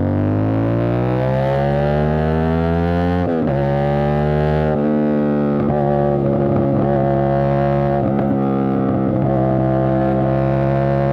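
CFMOTO 450 SR's parallel-twin engine breathing through an Avionic aftermarket exhaust under way. It pulls up through the revs for about three seconds, drops sharply at an upshift, then runs at a fairly steady speed with the revs creeping up near the end.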